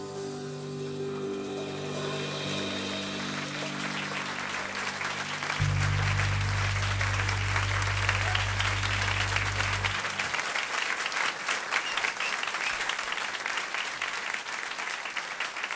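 Audience applause over the held final chord of a live music performance, the clapping growing louder; the music stops about ten seconds in and the applause carries on.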